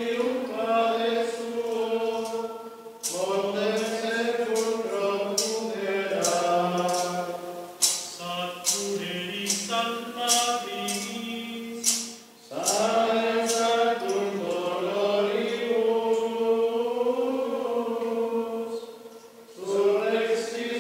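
Men's voices singing Latin plainchant in unison, in long phrases with short breaks about three seconds in, a little past the middle, and near the end.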